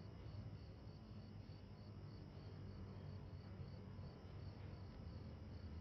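Faint crickets chirping in an even rhythm, about four or five chirps a second, over a low steady hum of room tone.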